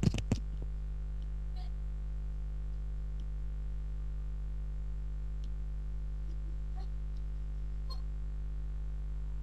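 Steady low electrical hum with a few sharp clicks in the first half-second, then only faint scattered ticks.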